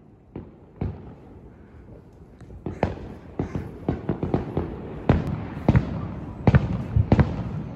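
Fireworks going off: a few scattered bangs, then from about three seconds in a rapid run of loud bangs, several a second, over a low rumble, loudest near the end.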